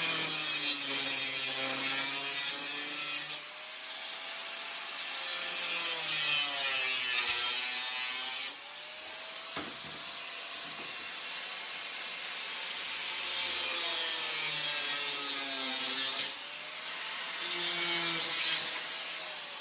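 Cutoff wheel on a power tool cutting through the metal pan of a motorcycle engine guard, with a loud hissing grind. It goes in a few passes, and the motor's pitch sags and rises as the wheel bites and eases off.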